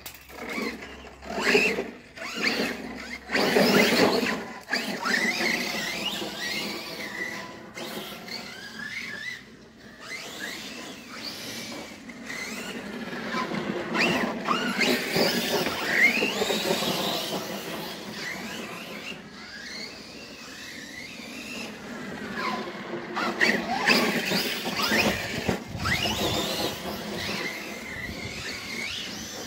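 Electric RC car's motor and drivetrain whining, the pitch repeatedly rising and falling as it speeds up and slows down, with a few sharp knocks from the car.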